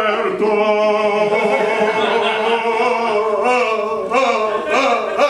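Male voices singing in an operatic style, long held notes with wavering pitch.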